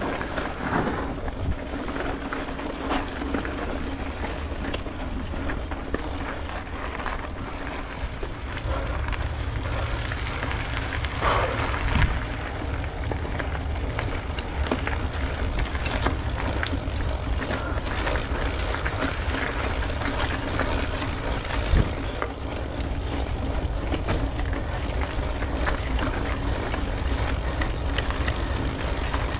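Wind buffeting the microphone during a bicycle ride, a steady low rumble over road and tyre noise with a faint steady hum. The rumble grows stronger about a quarter of the way in, and there are two short thumps, a little before halfway and about three-quarters in.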